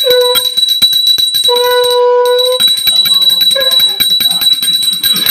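A puja hand bell rung rapidly and continuously, its loud high ring sustained under quick repeated clapper strikes. A steady held tone sounds briefly at the start and again for about a second in the middle.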